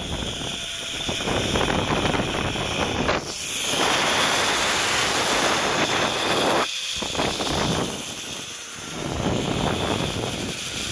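Wind rushing over the microphone of a camera carried on a fast zipline ride, a loud steady roar of noise that swells and dips, dropping out briefly just before seven seconds in.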